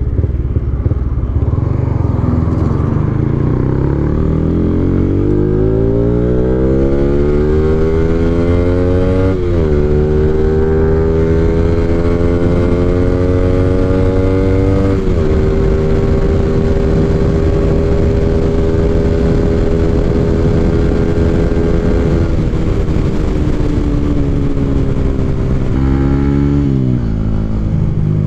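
Yamaha Y15ZR underbone's single-cylinder engine, built with a 57 mm big-bore kit, pulling up through the gears: the revs climb, drop at a gear change about nine seconds in and again about fifteen seconds in, then hold steady at cruising speed before falling away near the end. Wind rushes over the microphone throughout.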